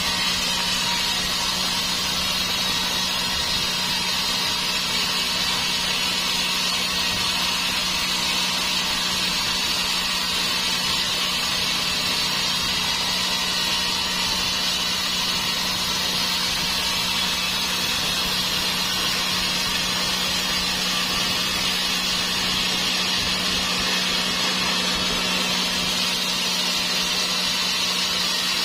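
Sawmill saw cutting steadily through a large dry teak log: an even, high-pitched cutting noise over a constant low machine hum, with no break.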